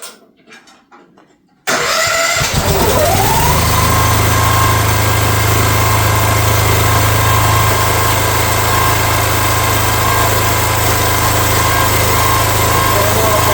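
Future FT15 mini excavator's engine is started cold on choke: it fires suddenly a couple of seconds in, rises quickly and settles into steady running.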